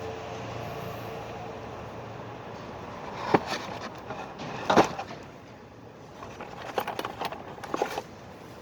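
Hand tools and engine parts knocking and clicking during valve-lifter work: two sharp single knocks, then a quick run of smaller clicks near the end, over a steady low hum.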